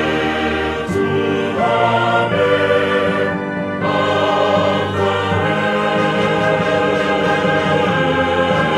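Choir singing sustained chords in a ritual oratorio, the harmony shifting every second or two.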